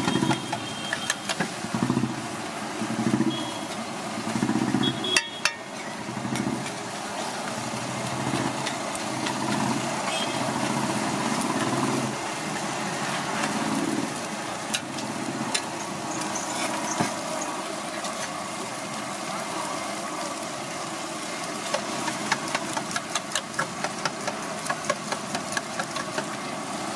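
Metal spatula scraping, stirring and chopping egg bhurji on a large flat iron griddle (tawa): rhythmic scraping and tapping of steel on iron over a steady background drone, with a fast run of sharp clicks near the end.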